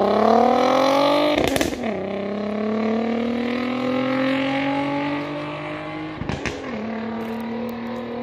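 VW Golf 5 R32's 3.2-litre VR6 accelerating hard away, with revs climbing through the gears. The revs break at an upshift about a second and a half in and climb again, then shift once more about six seconds in. The engine note grows fainter as the car pulls away.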